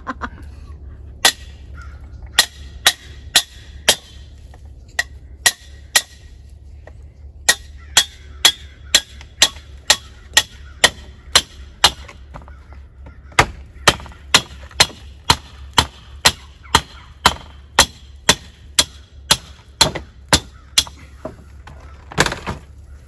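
Hammer blows: a long series of sharp strikes, about two a second, in runs of several blows with short pauses between them.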